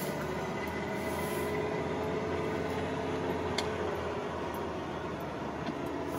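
1996 Ford F-150 pickup's engine running as the truck drives slowly, heard from inside the cab with road noise; the engine note rises a little and then eases off. A brief click about three and a half seconds in.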